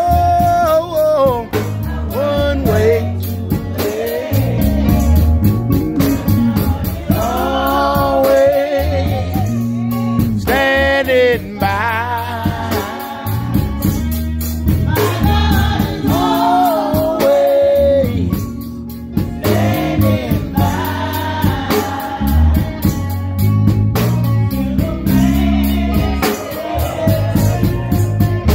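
Gospel singing with electric guitar accompaniment. The sung melody wavers with vibrato over steady low notes underneath.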